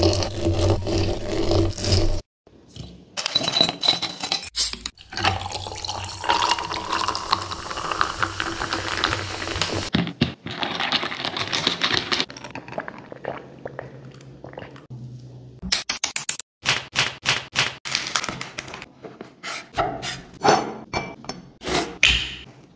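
Lime wedges muddled in a glass jar, then liquid poured into the jar, the pour rising in pitch as the jar fills. Afterwards a metal bar spoon stirs ice in the jar, with a run of quick clinks.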